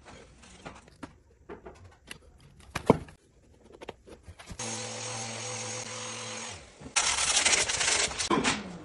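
Light clicks and taps of hand work on a wooden skirting board, with one sharp knock about three seconds in. A small power tool's motor then runs steadily for about two seconds, followed by a louder rough scraping noise lasting over a second.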